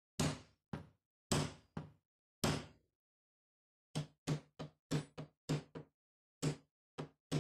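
Wooden mallet striking the butt of a wooden file handle, driving the handle onto the file's tang. A series of hollow knocks: about five spaced blows, a pause of about a second, then about ten quicker blows.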